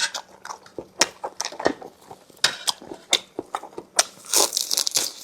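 Close-up eating: chewing with a run of sharp mouth clicks and smacks, joined by a louder breathy rush from about four seconds in.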